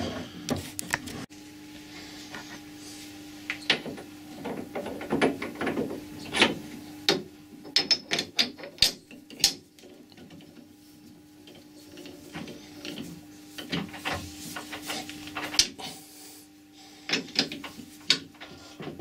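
Irregular metal clicks, clinks and ratcheting knocks as a workpiece is seated in a Colchester lathe's chuck and the chuck is tightened by hand with a tommy bar and key, over a faint steady hum.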